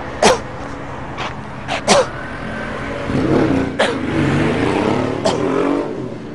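City street traffic with a car engine running up and then down in pitch, broken by about six short, sharp vocal outbursts from a man in distress.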